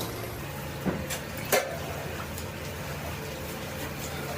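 Steady hum of factory machinery, with two sharp metallic knocks from cookware metal being handled, about one and one and a half seconds in.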